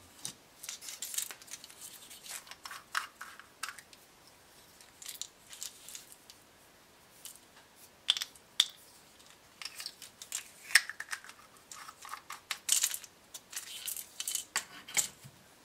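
A plastic storage stick made of pop-bottle sections, holding small parts, handled and turned in the hand: irregular clicks, rattles and short scrapes of plastic, with a few louder clacks about 8, 11 and 13 seconds in.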